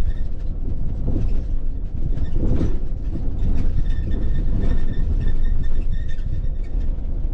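Mercedes Sprinter 4x4 camper van driving slowly over a rocky dirt track: a steady low rumble with knocks and rattles from the van.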